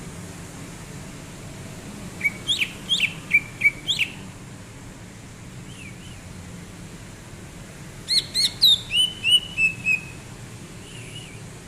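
Cucak ijo (green leafbird) singing in two bursts, each a quick run of about eight sharp whistled notes sweeping up and down. The first burst comes about two seconds in, the second near eight seconds, with a couple of softer notes in between, over a steady background hiss.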